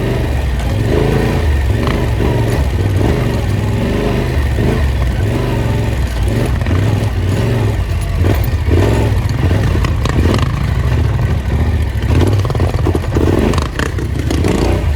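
Engine of an off-road vehicle driving a dirt trail, the throttle opening and closing in quick pulses over rough ground, with some clatter.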